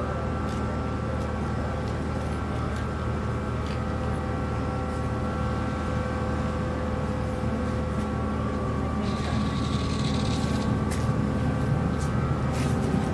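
Diesel engines of the car ferry MV Queen of Cumberland running steadily at the berth: an even, low drone with several steady tones. A brief hiss comes in about nine seconds in.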